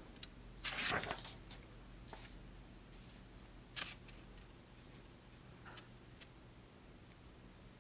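Paper pages of a thick paperback book being turned by hand: a few soft rustles, the longest about a second in, then shorter, crisper ones every second or two.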